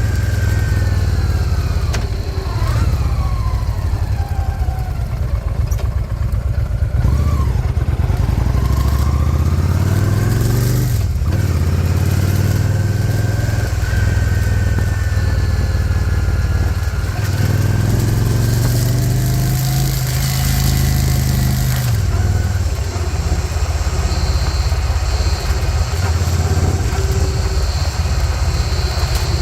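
Honda Shadow V-twin motorcycle engine running under way, its pitch climbing and dropping several times as the bike speeds up and eases off.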